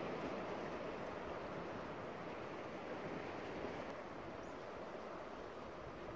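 Steady wash of sea surf on a rocky shore, growing slightly quieter.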